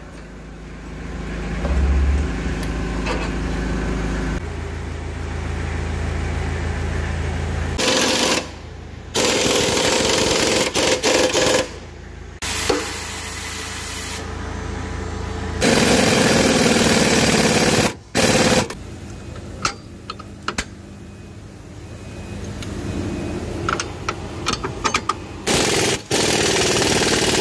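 Pneumatic impact wrench running in several rattling bursts of one to a few seconds each, with a low steady hum in the first eight seconds or so.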